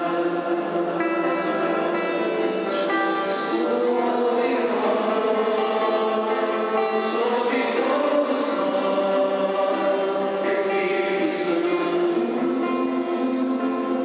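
Background music: a choir singing a Christian song in long held notes.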